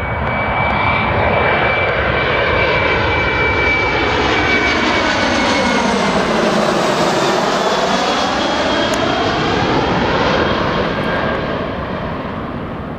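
A Boeing 737 on final approach passes low overhead, its CFM56 turbofan engines giving a steady rumble with a high whine. As it goes over about six or seven seconds in, the sound sweeps with a phasing swirl, then fades near the end as the plane moves away.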